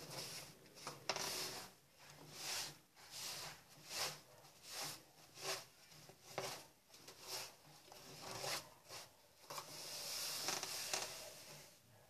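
Wet cloth rubbing around the inside of a washing machine's plastic outer tub, a faint swish with each wiping stroke about every three-quarters of a second, with a longer rub near the end.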